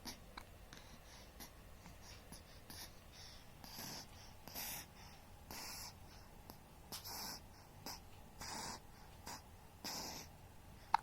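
Newborn baby's noisy breathing: about six short, hissy breaths, roughly one to one and a half seconds apart, starting a few seconds in.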